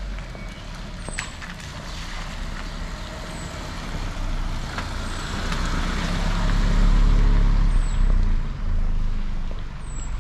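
A motor vehicle passing on the street, its engine rumble and tyre noise on the wet road growing loudest about seven seconds in, then falling away.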